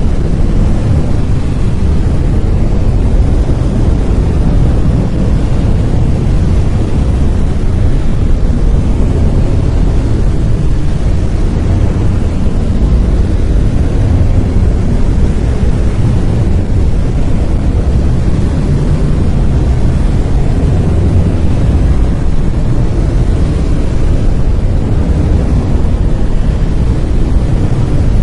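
Continuous brown noise: a steady, deep rumbling hiss, loudest in the low end and fading toward the highs, with no change throughout.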